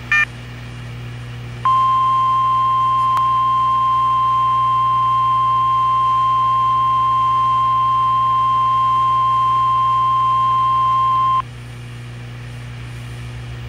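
NOAA Weather Radio 1050 Hz warning alarm tone: one steady, single-pitch tone lasting about ten seconds, the signal that a warning broadcast follows. A brief electronic blip at the start, with the receiver's steady low hum and hiss underneath.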